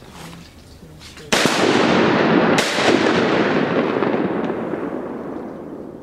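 Two shotgun shots fired at ducks, just over a second apart, each echoing away over the next few seconds.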